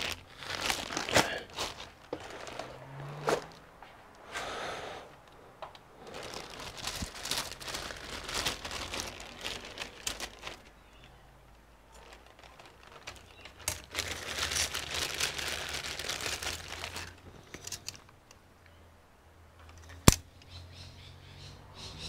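Clear plastic bags of RAM modules crinkling and rustling in uneven bursts as they are handled and searched through by hand, with scattered small clicks and one sharp click near the end.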